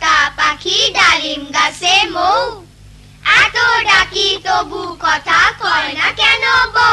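A cartoon character singing in a high, child-like voice, in quick syllables with a short pause about three seconds in.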